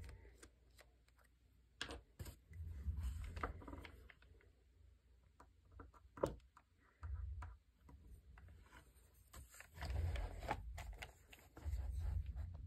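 Faint handling noise from a thin-paper notebook being turned and smoothed flat: light paper rustles and scattered clicks, with a few dull low thumps against the desk.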